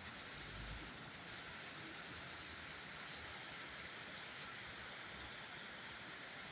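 Faint, steady hiss of falling rain.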